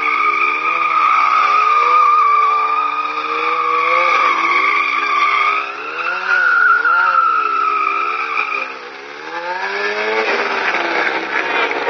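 Sportbike engine revving up and down in quick pulses while the rear tyre squeals in a steady high tone through a drifting circle. About nine seconds in the squeal stops, and the engine then revs higher as the bike accelerates away.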